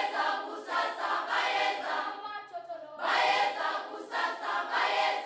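A group of voices singing together in chorus, in two phrases with a short dip about three seconds in.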